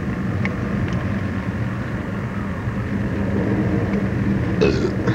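A motor vehicle's engine idling steadily, a low hum under street noise, with a brief louder rustle near the end.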